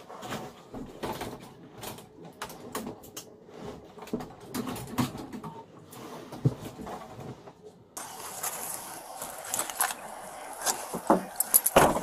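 Scattered faint knocks, clicks and rustles inside a patrol car's cabin. About eight seconds in, these give way abruptly to a steady hiss with rustling and clicks, and a single loud knock comes near the end.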